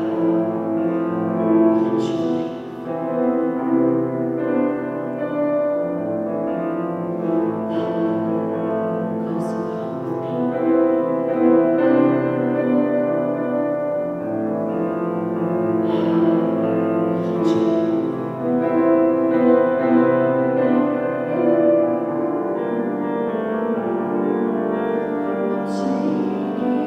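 Grand piano played in slow, sustained chords that ring on, with a new chord struck every few seconds.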